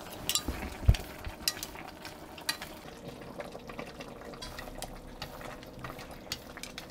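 Spatula stirring a braise in a clay pot to work in a tapioca starch slurry that thickens the sauce. It makes irregular light scrapes and clicks against the pot, with one duller knock about a second in.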